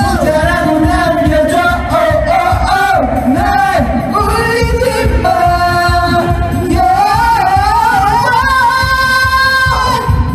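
Several young men singing loudly into karaoke microphones over a backing track with a steady beat.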